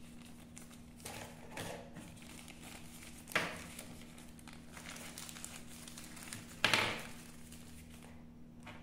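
Small plastic packaging bag crinkling as it is handled and opened to get at an accessory inside, with two louder crinkles, about a third of the way in and about two-thirds in. A faint steady hum sits underneath.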